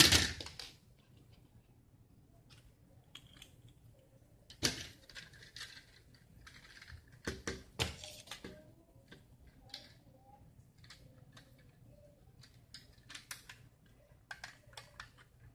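Scattered small clicks and rattles from a toy gun being handled while its parts are fitted back together. A few sharper clicks come about five seconds in and again near eight seconds.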